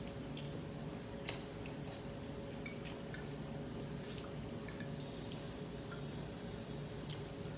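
Utensils clicking and clinking now and then against glass plates during eating, with small wet eating noises, over a steady low hum. The sharpest clinks come about a second in and about three seconds in.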